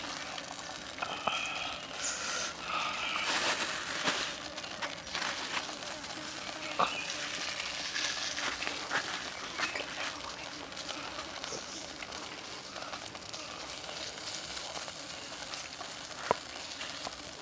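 Whole frog sizzling on a green-stick grill over charcoal, with scattered small pops and crackles and one sharper pop near the end.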